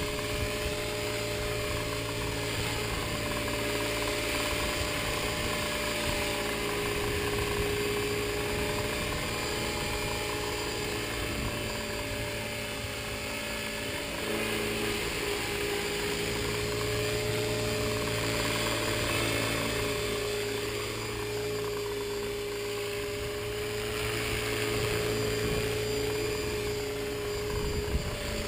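Tarot 450 electric RC helicopter hovering: the steady whine of its motor and rotor, its pitch shifting slightly now and then as the throttle is worked.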